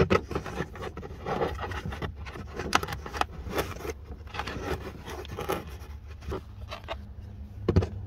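Wires and a finned load resistor being pushed and tucked into a tail-light housing cavity: irregular rustling and scraping with light plastic clicks and a few louder clicks near the end, over a steady low hum.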